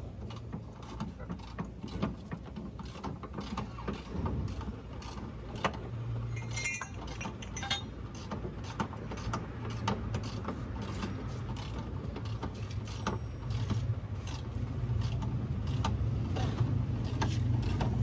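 Hand ratchet wrench clicking in repeated short strokes as a bolt on a Porsche Boxster 986 front suspension arm is worked loose or tightened. A steady low hum runs underneath and grows louder near the end.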